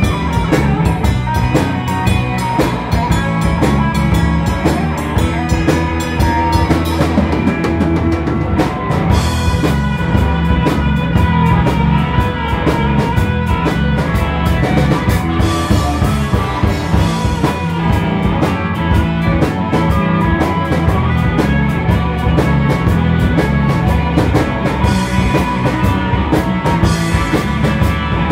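Live blues band playing an instrumental passage of a shuffle: electric guitar, bass guitar and drum kit keeping a steady beat, with a harmonica played into the vocal mic holding and bending notes on top.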